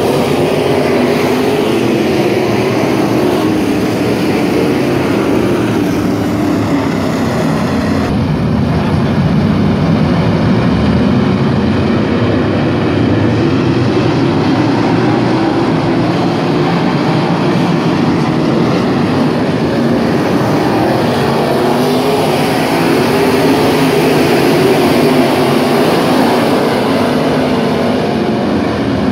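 A pack of dirt-track modified race cars lapping the oval, their engines running together in one steady, loud drone.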